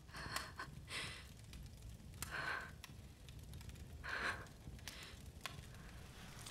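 A young woman's faint breathing: four short, weary breaths and gasps, a second or two apart, over a low steady room rumble with a few small clicks.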